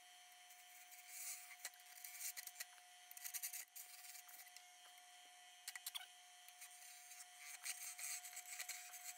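Wood lathe running with a steady tone while a narrow turning tool cuts into the spinning silver maple at the goblet's foot, giving irregular bursts of hissing scraping with a few sharp ticks from about a second in.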